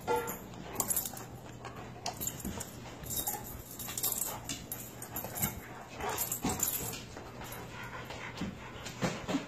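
Two dogs play-fighting, giving irregular short bursts of growling and whining vocal noise mixed with snaps and scuffles.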